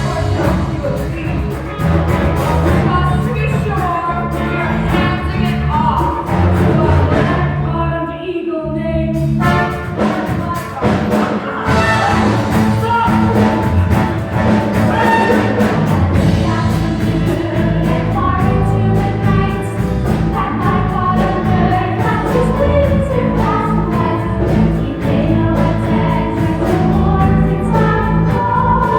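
Musical-theatre song: a group of voices singing over a full orchestral backing, with a short drop in the music about eight seconds in.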